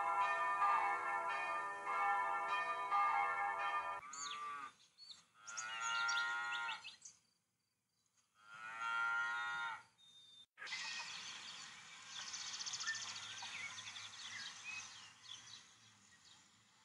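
A string of sound effects. A bell rings with several strikes for about four seconds, then cows moo three times, then birds chirp and sing from about eleven seconds in, fading near the end.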